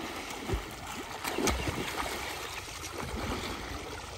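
Water splashing and sloshing as swimmers plunge and move about in a canal, with a couple of low thuds in the first two seconds.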